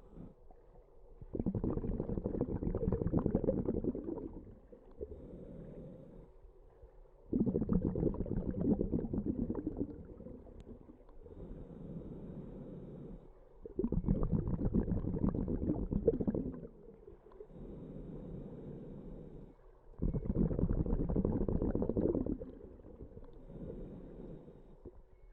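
Scuba diver breathing through a regulator underwater: four loud, low bubbling exhalations about every six seconds, each lasting around three seconds, with a quieter inhale between them.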